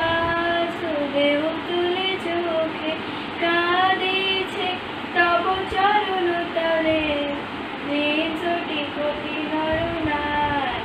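A young girl singing solo, one voice holding long notes with slow, ornamented glides between them; the last note bends down and ends near the end.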